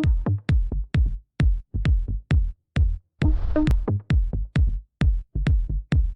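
Electronic dance music with a punchy kick drum beat, about two hits a second, and short synth stabs on the beat.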